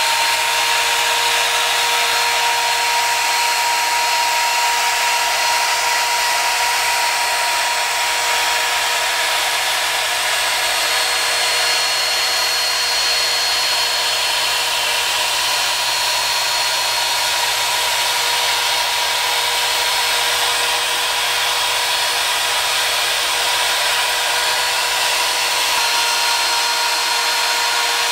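Compact trim router running at a constant full speed with a steady high whine, routing a circle into a wooden guitar top.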